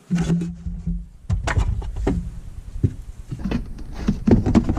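Plastic trunk trim cover being pushed back into place in a car's boot: rubbing and scraping with a run of sharp clicks and knocks. A low hum sounds in the first second.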